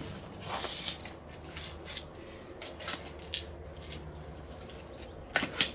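Cardboard motherboard box being handled and opened: a brief scrape or rustle of cardboard, then a few light clicks and taps as the box is stood up and its top flap is pried open.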